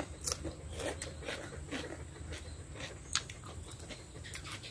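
Close-up eating sounds: irregular chewing, crisp bites and small mouth clicks as people eat grilled fish and raw cucumber, over a low steady hum.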